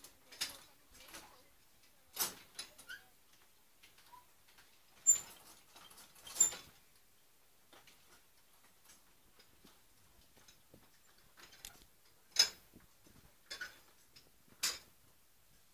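Scattered short, sharp clicks and taps at irregular intervals, a few clearly louder than the rest, over a quiet background.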